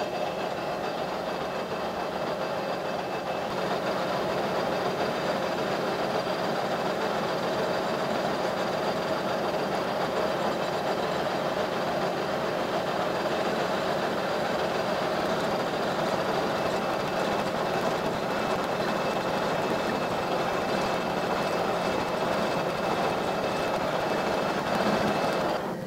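Metal lathe running steadily, its four-jaw chuck spinning an offset-mounted half-inch shaft while the tool takes fine cuts to turn a new cam. The motor and gearing give a constant hum with a few steady tones.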